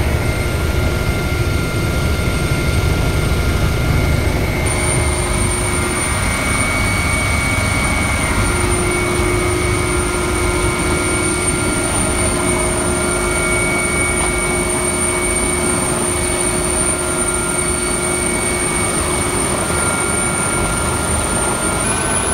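Helicopter heard from inside its cabin with the side door open: a steady low rotor throb under a constant high turbine whine.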